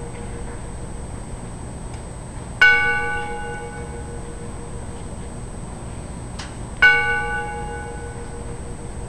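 A single bell struck twice, about four seconds apart, in a slow memorial 21-bell salute; each stroke rings out clearly and fades over a second or two.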